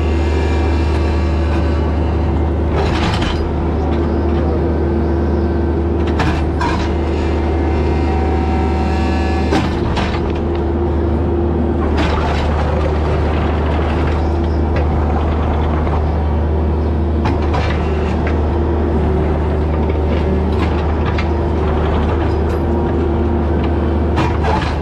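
Bobcat E26 mini excavator's diesel engine running steadily under working load, with a number of short knocks and clanks scattered through it.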